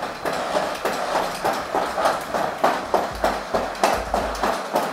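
Deep Robotics X30 quadruped robot walking with a load on its back: its feet knock on the floor in an even rhythm, about three steps a second.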